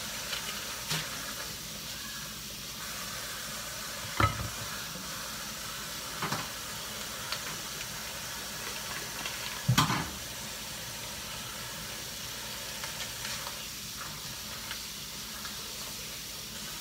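Steady hiss of a kitchen tap running into the sink together with vegetables frying in oil in a skillet, broken by a few knocks of dishes being handled in the sink, the loudest about ten seconds in.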